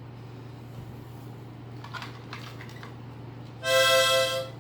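A toy flute blown once: a short, loud reedy note of under a second, about three and a half seconds in, over a steady low electrical hum.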